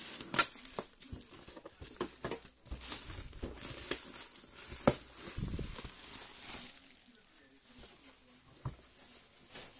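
Black plastic shipping bag crinkling and crackling as it is cut and pulled off a cardboard box, with scattered sharp crackles and clicks. It quietens over the last three seconds while the box is handled.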